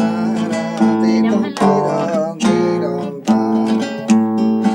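Acoustic guitars strumming chords of a traditional Extremaduran folk song, with a strong strum about every second.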